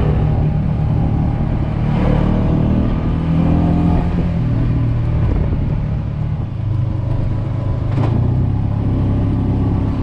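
Side-by-side UTV engine running at low trail speed, heard from the open driver's seat, its pitch rising and falling several times with the throttle.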